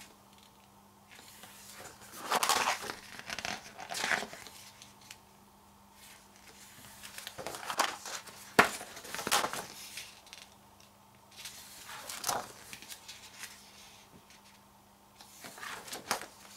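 Pages of a photobook being turned and handled: several separate paper rustles and swishes, with one sharp snap about halfway through.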